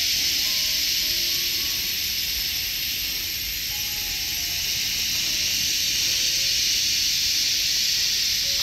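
Steady high hiss, with faint background music of soft, scattered single notes.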